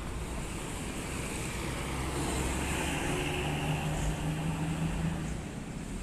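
Intercity coach bus passing close and pulling away, its engine running with a steady low drone and tyre and road noise. A low engine tone grows louder through the middle.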